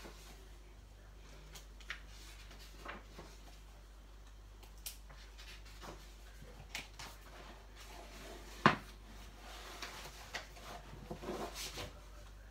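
Paper pages of a colouring book being turned and handled: soft rustles and light taps, with one sharper click about two-thirds of the way in and a run of rustling near the end.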